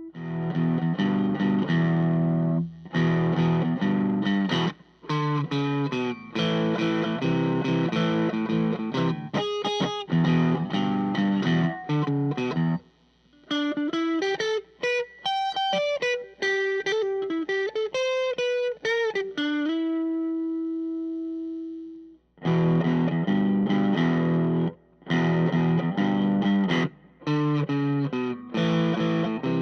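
Electric guitar played through an overdriven Vox AC10 tube amp with a Tube Screamer-style overdrive pedal: choppy distorted chord riffs, then a lead passage of single notes with string bends, a held note, and chords again.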